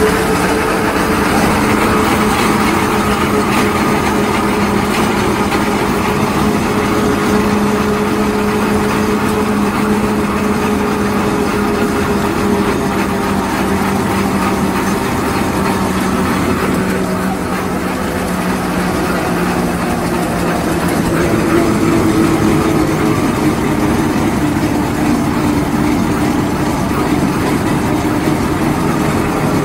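Steam traction engine running along the road, heard from its footplate: a loud, steady mechanical running noise with a humming tone. The hum drops slightly in pitch a little past the middle, and a higher hum comes in near the end.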